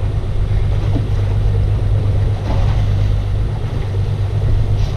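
Steady low hum of a boat's outboard motor idling.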